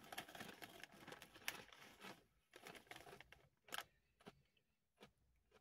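Foil snack-chip bag crinkling quietly as a hand rummages inside it for a chip, a dense crackle for about two seconds, then a few scattered faint crackles.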